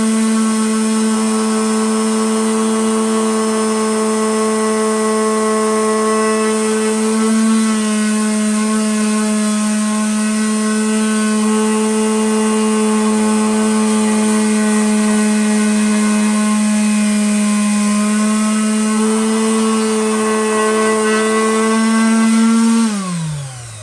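Electric power sander running steadily on an ash wood round, its motor pitch dipping slightly a few times under load. Near the end it is switched off and winds down, the pitch falling away.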